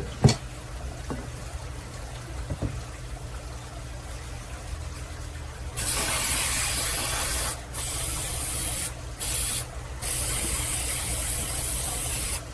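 Aerosol can of Pam baking spray hissing as it coats a mini loaf pan, in four bursts starting about halfway through, most of them one to two seconds long with short breaks between. Two sharp knocks come right at the start.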